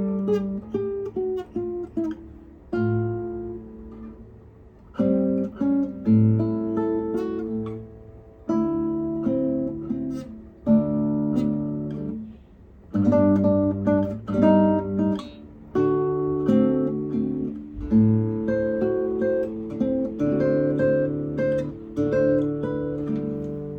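Solo acoustic guitar, fingerpicked melody over bass notes, played as a practice run in short phrases with brief pauses between them.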